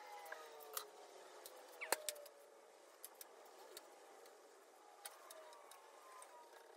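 Quiet workshop handling noise: a few light clicks and taps, the sharpest about two seconds in, over faint tones that slowly fall in pitch.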